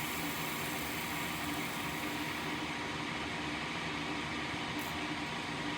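A small electric fan drawing off soldering smoke, running with a steady whir and a constant low tone.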